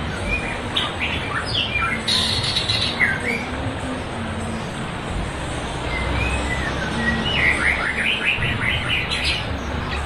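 Rushing river water with songbirds singing over it: scattered whistled calls, then a quick run of short notes near the end.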